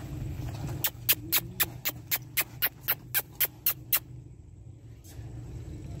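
A rapid, even series of about a dozen sharp clicks, about four a second, lasting about three seconds.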